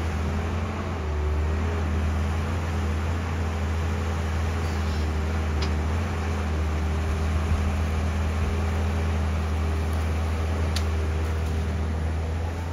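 Diesel engine of an XCMG XE225BR hydraulic excavator running steadily as the machine digs and swings its bucket, with a couple of faint short knocks about halfway through and near the end.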